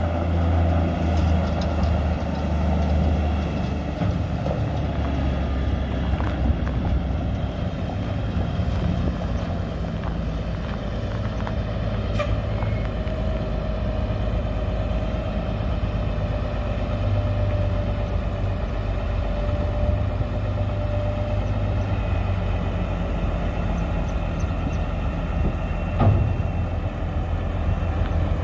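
Diesel engine of a 1979 International Transtar 4200 dump truck running steadily as the truck moves slowly and comes to a stop, then idling. It is loudest at the very start, and there is a sharp clack near the end.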